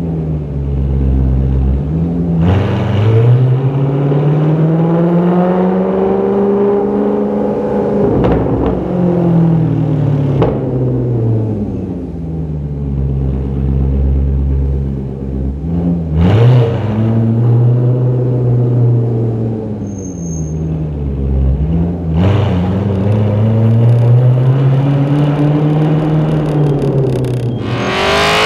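Maserati Quattroporte 4.2's V8 through a Tubi-style sports exhaust, rising and falling in pitch in slow swells about four times, with a few sharp cracks, mostly as the revs come down. Near the end it jumps to a louder, harsher rev.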